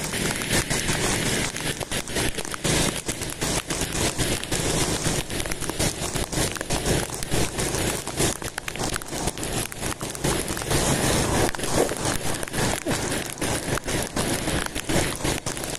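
Crackling, buffeting noise of wind and rain on a motorcycle-mounted camera's microphone while riding through light rain, with the motorcycle's engine low underneath.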